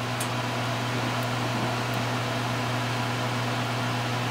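Steady low hum over an even hiss, with a few faint light ticks.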